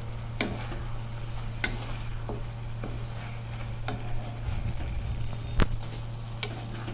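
Chicken pieces with onions cooking in their own released juices in a pan, sizzling gently, while a metal spoon stirs them and knocks against the pan in a few scattered sharp clicks, the strongest a little past halfway.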